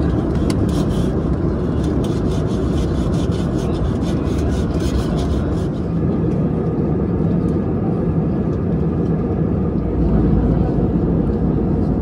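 Steady cabin roar of an Airbus A320 airliner in flight, heard from a window seat: engine and airflow noise. Faint rapid crackling clicks ride over it through the first half, then stop.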